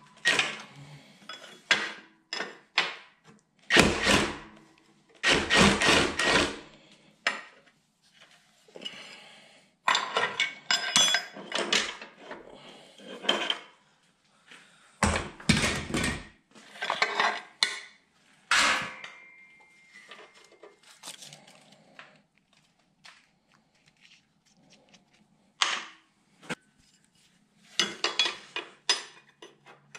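Hand tools clinking and scraping against the steel frame in irregular bursts as a 3/4" wrench and socket work a bracket bolt, with occasional short metallic rings.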